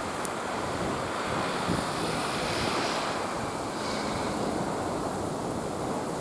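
Wind blowing over the microphone: a steady rushing noise.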